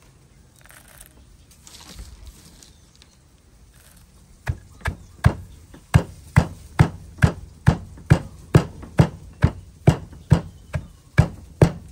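Wooden pestle pounding a green herb-and-peanut paste in a wooden mortar. Steady thuds, about two or three a second, begin about four seconds in.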